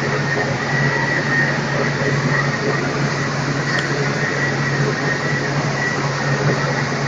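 A steady mechanical hum over a hiss, with a low drone and a thin high whine that hold unchanged throughout.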